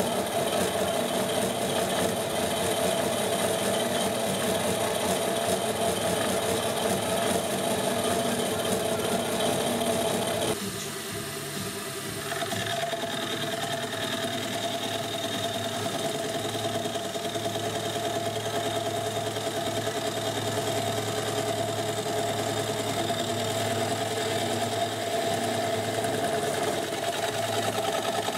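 Benchtop milling machine running a face mill across the face of a cast-iron valve chest casting: a steady machining whirr with a held whine. About ten seconds in the sound drops sharply and then builds back to a steady cut.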